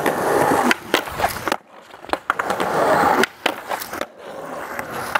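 Skateboard wheels rolling over concrete, broken by several sharp clacks and two short drops to quiet.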